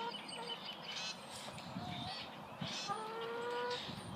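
Farm poultry calling: a few short calls, then one longer call about three seconds in.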